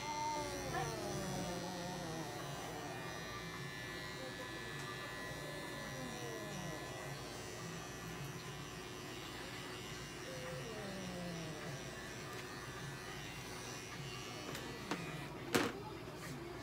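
Small cordless electric pet clipper buzzing steadily as it trims a long-haired cat's fur, while the cat gives several drawn-out yowls that fall in pitch. A couple of sharp knocks near the end.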